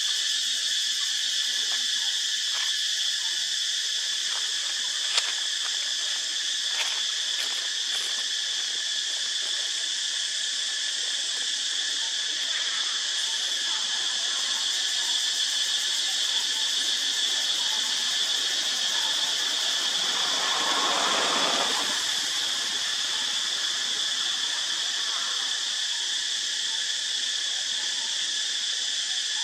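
Steady, high-pitched insect chorus, several unbroken shrill bands with no pauses. A few sharp clicks come early, and a rushing noise swells and fades about twenty seconds in.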